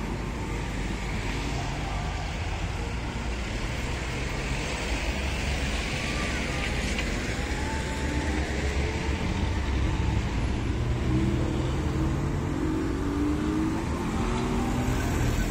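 Road traffic: cars driving past with a steady rumble of tyres and engines. In the second half it grows louder, and an engine can be heard speeding up.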